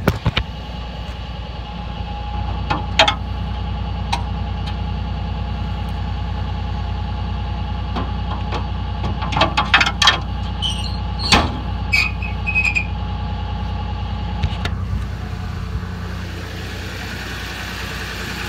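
A 2008 Dodge Ram 3500's 6.7-litre Cummins inline-six turbo-diesel idling steadily. Scattered knocks and clatter from handling come through over it, with a few brief high squeaks about twelve seconds in.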